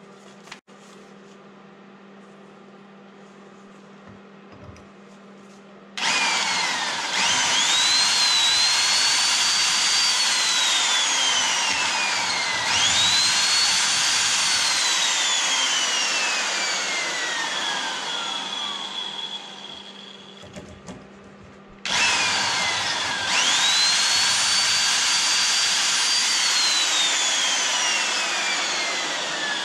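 Large corded electric drill boring into the end of a Wisconsin VH4D engine's crankshaft, run in three long bursts beginning about 6 s in. Each time the motor whine jumps up as it starts, then falls slowly in pitch while the bit cuts.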